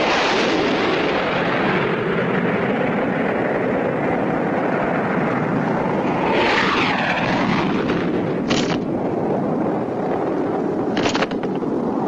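Cartoon sound effect of a diving aircraft: a steady rushing roar, with a falling whistle about six seconds in and two short hissing bursts later on.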